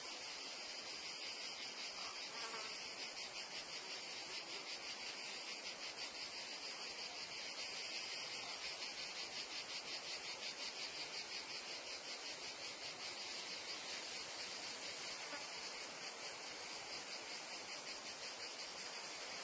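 Meadow insect chorus: a steady, high-pitched chirring trill from many insects at once, pulsing rapidly and evenly throughout.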